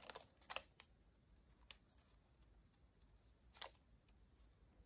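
Near silence with a few faint clicks and ticks of metal tweezers working against a folded paper Easter egg, the clearest about three and a half seconds in.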